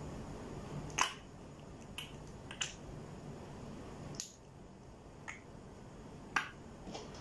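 Short, sharp sticky clicks and pops, about seven of them spread irregularly, as clear slime and glitter glue are squeezed from a tube and pressed with the fingers, over a faint steady hum.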